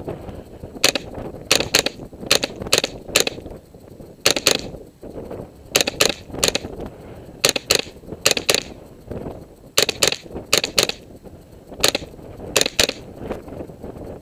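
Semi-automatic .22 LR rifle shots from an AR-15 fitted with a CMMG .22 conversion kit, about twenty sharp cracks fired in quick pairs and short strings with pauses of a second or so between groups.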